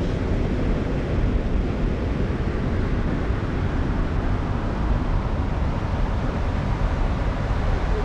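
Wind buffeting the microphone outdoors: a steady, low rumbling noise, with no other distinct sound.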